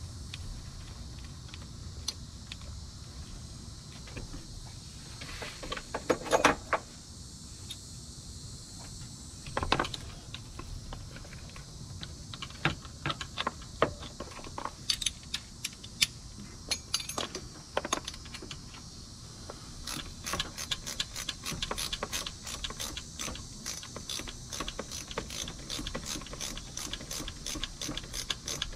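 Scattered metallic clinks and knocks from hands and tools working around the engine, the loudest about six seconds in. Then, from about two-thirds of the way through, a socket ratchet clicking quickly and evenly as it runs in a thermostat housing bolt.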